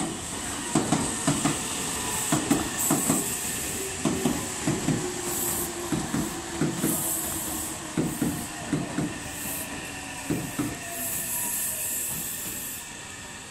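Meitetsu 3150- and 3100-series electric train cars rolling slowly into the platform: wheels knock over the rail joints again and again, often in pairs, under a falling motor whine as the train slows to arrive. Spells of high hiss come and go, and the sound eases off near the end.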